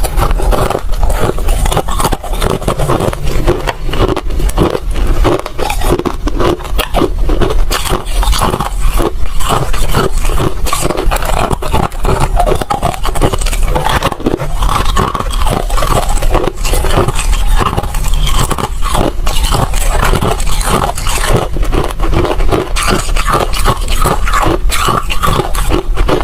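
Crunchy ice being bitten and chewed, a loud, unbroken run of irregular crunches and cracks.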